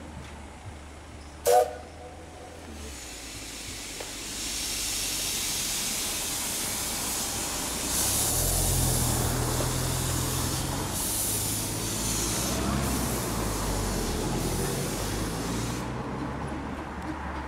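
A 15-inch gauge steam locomotive letting off steam: a steady hiss that starts about four seconds in, grows louder with a low rumble underneath, and cuts off sharply near the end. It is preceded by a brief loud sound about a second and a half in.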